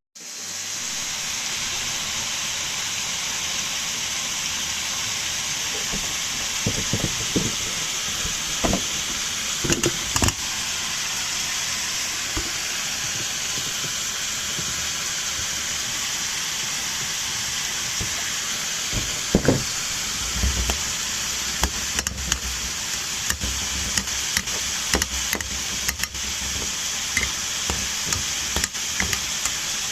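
Food sizzling in a pan: a steady hiss, with scattered knocks and taps of a utensil against the pan, most of them in a few clusters.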